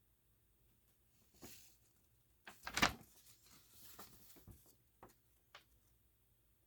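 Handling noises from paging through a paper instruction manual: a few light rustles and taps, with one louder knock about three seconds in.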